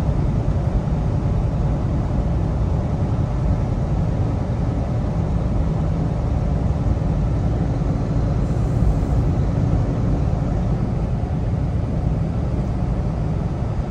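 Steady low drone of a Kenworth T680 semi truck's engine and tyres heard inside the cab while cruising at road speed.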